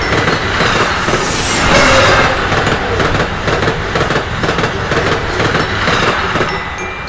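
A train passing, its wheels clattering over the rail joints in a quick, even rhythm, with a brief high squeal about one and a half seconds in. It fades slightly near the end.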